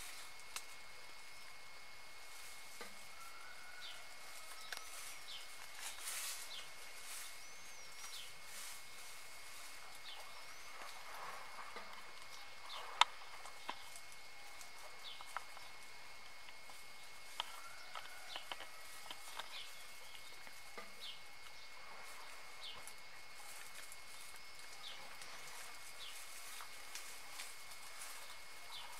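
Quiet outdoor ambience: scattered short bird chirps over a steady high hiss, with a few faint dry-leaf crackles and one sharp click about halfway through.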